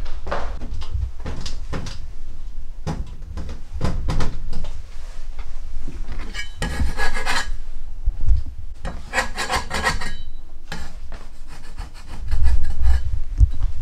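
Steamed-bun dough balls being rubbed and pushed across a wooden board: a run of short rubbing, scraping strokes, with a burst of low thumping near the end.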